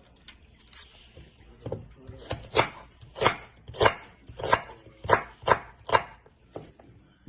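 Knife chopping an onion on a board: about eight sharp chops, roughly two a second, starting about two seconds in.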